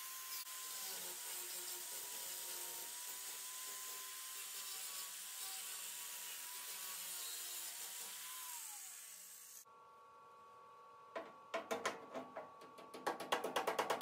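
Handheld power grinder running on the Bronco's sheet-metal edge, cleaning off paint and burrs, with a steady whine over a hiss; about eight and a half seconds in the tool spins down. After a sudden cut to quieter sound, a few knocks start and turn into a fast even tapping near the end.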